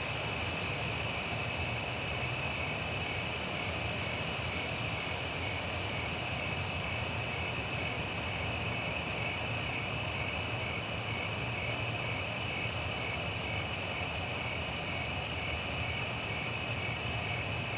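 Steady chorus of crickets trilling in high, unbroken tones, over a low hum of distant traffic.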